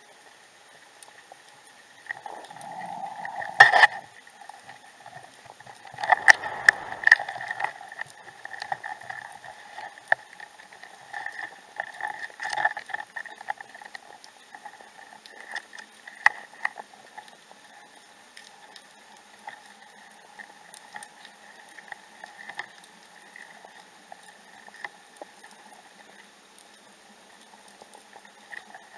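Underwater water noise heard through a submerged camera: a bubbling, crackling patter with a sharp click about four seconds in and a louder stretch of crackling around six to seven seconds, thinning to scattered crackles afterwards.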